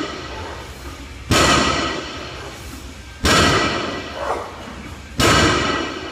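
A 405 lb barbell loaded with iron plates set down on the gym floor between deadlift reps. Each landing is a heavy thud with metallic ringing that fades off, three times about two seconds apart.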